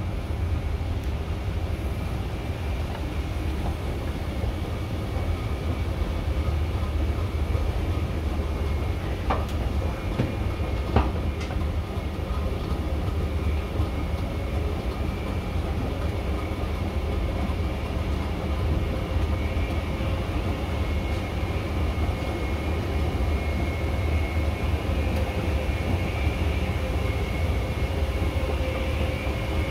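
Steady low rumble with a faint high whine from the running machinery of an underground station concourse: the escalator drive and the ventilation air. A couple of light clicks come about a third of the way in.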